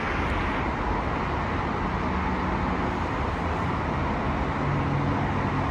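Steady vehicle road noise with a low engine hum, as heard from a moving car.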